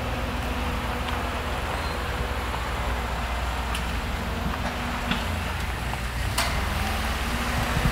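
Steady low rumble and hiss of railway station ambience, with a few faint sharp clicks about five and six and a half seconds in.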